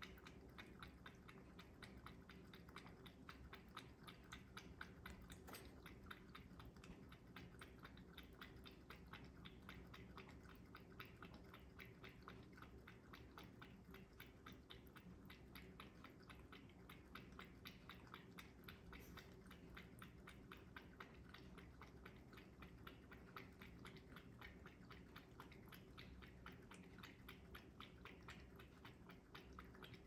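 A cat lapping water from a pet water fountain: faint, quick, regular laps, about four a second.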